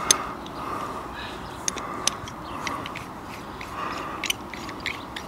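Hand cable-stripping tool worked around a 6mm armoured cable's outer sheath: irregular sharp clicks over soft repeated scraping strokes.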